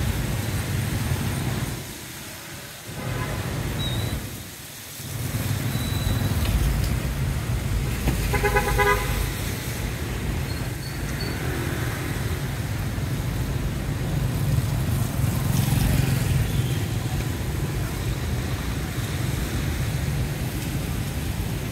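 Street traffic on a wet road: a steady rumble of passing cars and motorbikes, briefly quieter twice in the first few seconds, with a vehicle horn sounding once for about a second about eight seconds in.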